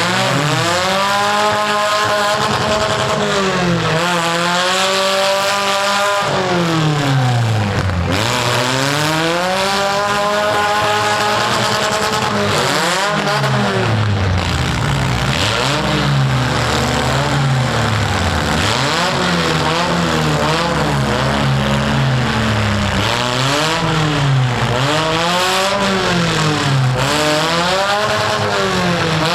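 Four-cylinder engines of demolition derby economy compact cars revving, their pitch climbing and falling over and over as the cars accelerate and back off.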